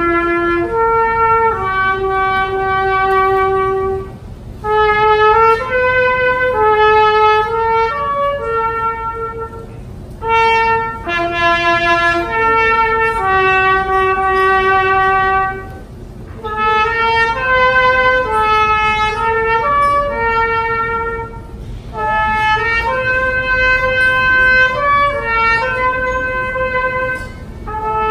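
A solo wind instrument playing a slow melody of held notes, one note at a time, in phrases with short pauses about every six seconds.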